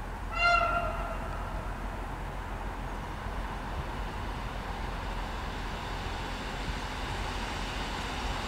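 Short single-tone horn blast from an approaching SKM EN57AKM electric multiple unit about half a second in, followed by the steady, slowly growing rumble of the train coming closer along the track.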